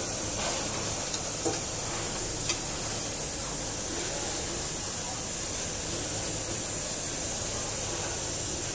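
Steady hiss of compressed air from a tray denester's pneumatic system, with a few light clicks in the first few seconds.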